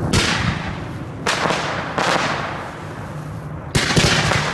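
Display fireworks fired close by: four sharp bangs in about four seconds, each trailing off in a fading hiss.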